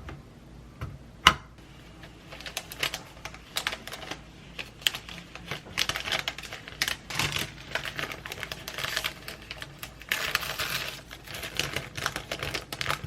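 Rapid, irregular light clicking and clattering, with one sharp, louder click about a second in and a denser burst of clatter near the end.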